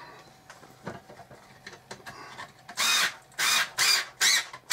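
Small cordless screwdriver driving a screw into the wooden plate rack in short pulses of the trigger: about four brief bursts, roughly two a second, starting a little past halfway.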